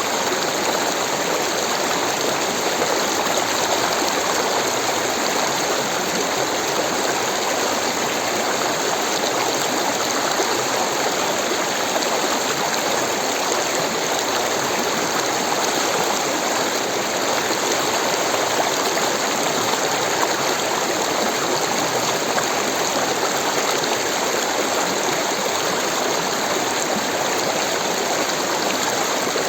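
Rushing water of a stream, a steady, even rush without breaks.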